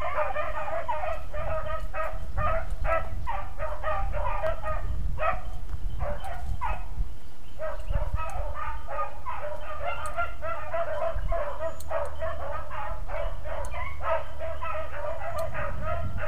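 A pack of beagles baying continuously on a trail, several hounds' voices overlapping in a steady chorus: the hounds are in full cry, running a rabbit.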